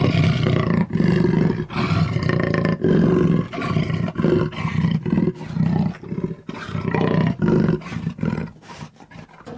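A big cat roaring: a series of deep, rasping roars, about one a second at first, then shorter, quicker and fading toward the end.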